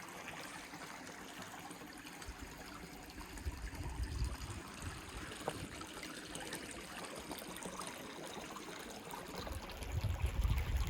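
Small creek waterfall bubbling and trickling over rocks, a steady rush of water. Low rumbles come in around four seconds in and again near the end.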